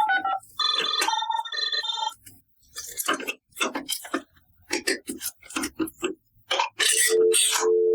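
A toy's electronic beeps play a short stepped tune, then a long run of sharp plastic clicks and taps as toy food pieces are handled and set down, with rustling and a steady electronic beep near the end.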